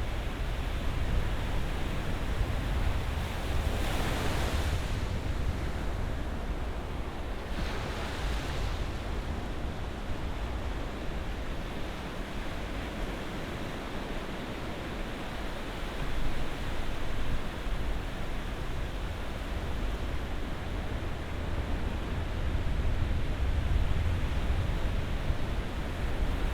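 Ocean surf: a steady low rumble of waves, with two waves breaking more loudly about four and eight seconds in.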